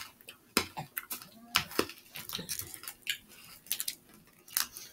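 Scattered short clicks and crinkles from handling and eating hard candies: wrappers rustling and candy clicking in the mouth, with a few faint small vocal sounds.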